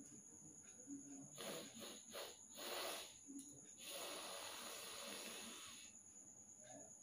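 A person blowing their nose: a few short blows, then one long blow of about two seconds.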